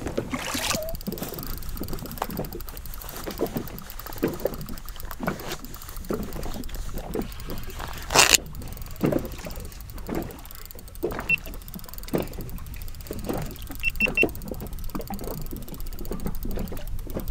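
Water slapping and sloshing against a small boat's hull, with irregular knocks and one sharp knock about eight seconds in.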